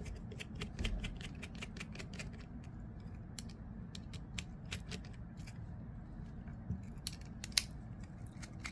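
Torx T8 driver backing screws out of a folding knife's handle: a run of small, quick metal clicks, several a second, with one sharper click near the end.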